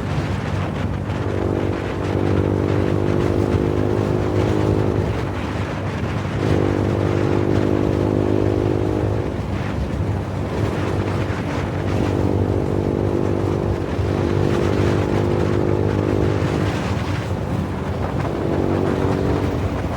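Suzuki Gixxer motorcycle's single-cylinder engine running under way through a loud exhaust, its note strengthening and easing back several times as the throttle is opened and closed, with wind noise.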